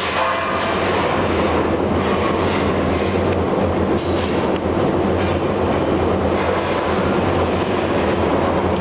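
Steady, loud machinery drone of a forging shop, with a low hum under it and a few faint clanks.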